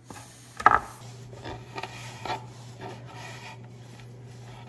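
Chef's knives chopping and scraping sun-dried tomatoes on a plastic cutting board: irregular taps and rubbing scrapes, the loudest a sharp clack a little under a second in.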